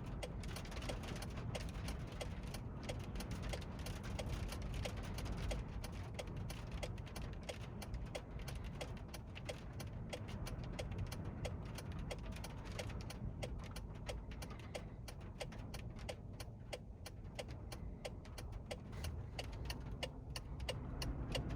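Wind buffeting a truck's cab with a low rumble while rain hits the roof and windshield in many sharp irregular taps, under a steady light ticking about one and a half times a second.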